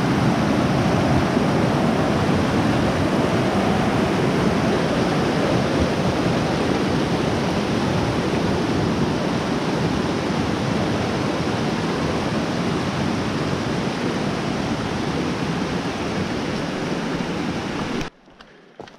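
Fast mountain creek rushing over a rocky bed in whitewater, a steady loud rush of water; it cuts off abruptly near the end.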